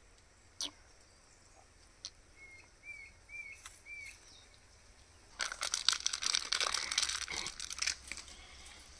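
Dry leaf litter crackling and crunching for a couple of seconds from a little past halfway, as a person shifts on the ground. Earlier, a bird gives four short chirps, and there are a couple of faint clicks.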